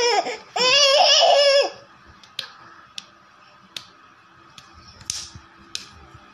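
Baby laughing and squealing in high, wavering bursts for the first couple of seconds, then falling quiet. After that, half a dozen light sharp taps come every half second or so.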